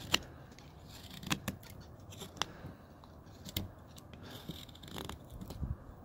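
Carving knife cutting into a hard block of wood: short, crisp cuts and snaps as chips come off, about eight at irregular intervals, the loudest just after the start.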